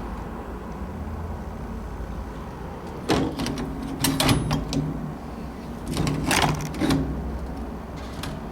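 Pipe wrench turning the threaded collar of an old Sargent doorknob counterclockwise to loosen it: three bursts of metal-on-metal noise about 3, 4 and 6 seconds in, over a steady low hum.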